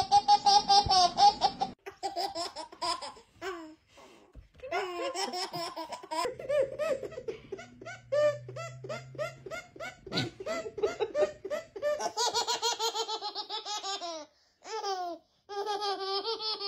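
Babies laughing: several infants in turn, each giving runs of quick, high-pitched belly laughs and giggles, with short breaks between them.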